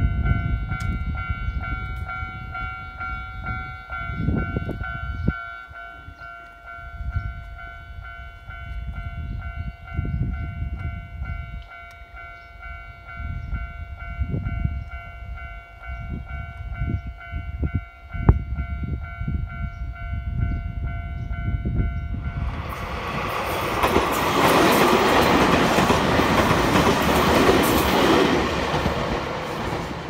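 Japanese level-crossing warning bell ringing steadily over an irregular low rumble. About 22 seconds in, a Nankai Koya Line train passes over the crossing, and the loud rush of its wheels on the rails drowns out the bell, easing slightly near the end.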